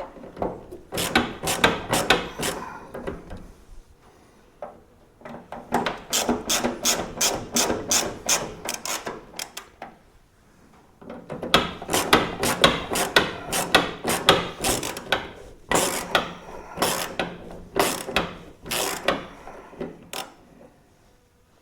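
Ratchet wrench clicking as the door hinge bolts are run in, in three long runs of rapid clicks with short pauses between them.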